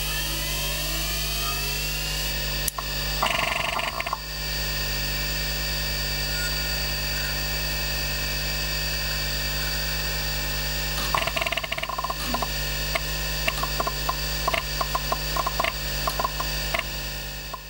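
MFM hard disk drive finishing its spin-up with a rising whine that levels off into a steady hum and whine. Its heads then seek: a short buzzing burst about three seconds in, and a run of quick seek clicks and buzzes in the last six seconds.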